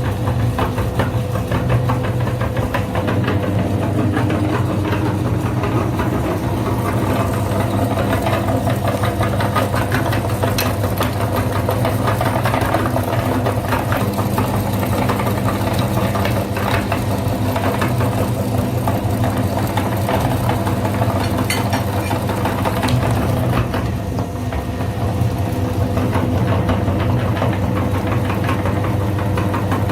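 Electric grinder running steadily, its motor humming, with the contents rattling and clicking inside the jar.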